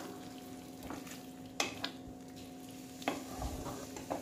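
Wooden spatula stirring a thick curry of paneer and capsicum in a metal kadai, tapping and scraping against the pan several times, over a faint steady sizzle.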